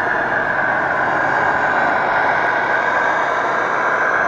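Radio-controlled scale model MAN Lion's Regio bus driving, giving a steady running sound with a constant high whine.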